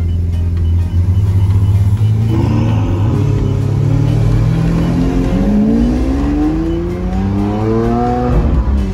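Lamborghini Aventador V12 heard from inside the cabin: a steady low idle for about two seconds, then it pulls away. Its pitch climbs, drops at a gear change about five seconds in, and climbs again before another upshift near the end.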